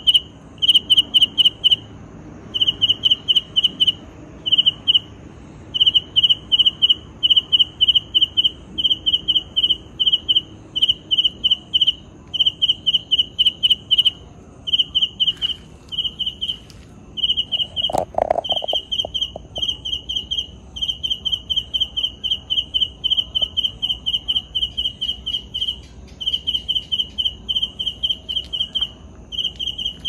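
A single insect chirping: a clear high tone pulsed in quick runs of short chirps, several a second, broken by brief pauses. A short knock about eighteen seconds in.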